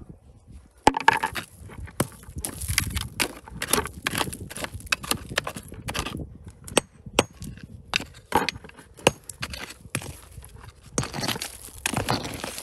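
Digging by hand in rocky ground: stones and gravel crunch, scrape and clink in quick, irregular knocks that begin about a second in.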